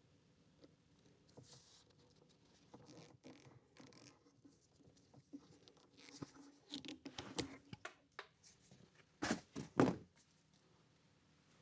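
Faint handling noises of hands working with parts and wiring: scattered rustles, scrapes and small clicks, with two louder short rustling scrapes a little after nine seconds and just before ten seconds in.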